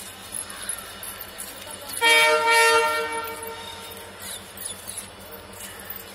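An electric locomotive's horn sounds one short, steady, high-pitched blast, under a second long, about two seconds in, over the low background hum of the station.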